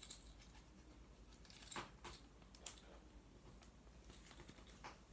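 Near silence, with a few faint taps and rustles of small merchandise items and packaging being handled, three of them short clicks.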